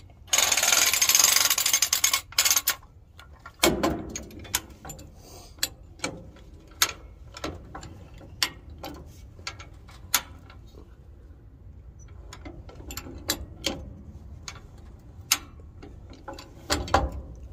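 High-lift farm jack being pumped by its handle, its pawls clicking as it ratchets up the bar to lift a truck flatbed, with sharp clicks at uneven intervals. A loud rough noise fills the first couple of seconds.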